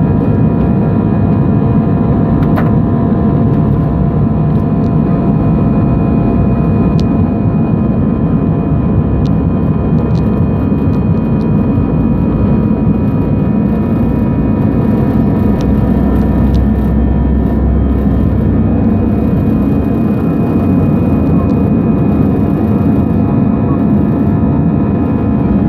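Airbus A319's CFM56 turbofan engine running steadily, heard inside the cabin at a window seat over the wing. It makes a loud, even low rush with faint steady whining tones above it.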